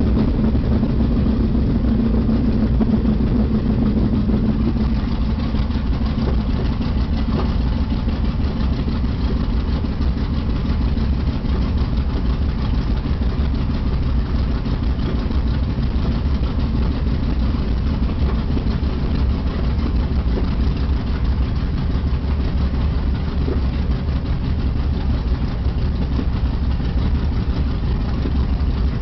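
The twin Wright R-2600 radial engines of a B-25 Mitchell running steadily at taxi power, heard from inside the cockpit. The engine sound is even throughout, with a stronger hum in the first few seconds.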